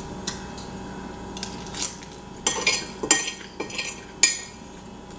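A metal fork clinking and scraping against a white ceramic casserole dish while scooping up the last of the macaroni and cheese. The clinks come irregularly, a few at first and then a busier run from about halfway through.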